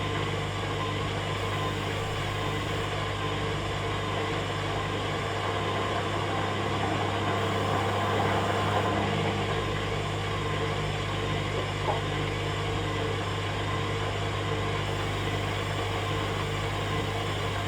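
Hoover Dynamic Next washing machine running with a steady mechanical hum, swelling slightly partway through, with a single short click about twelve seconds in.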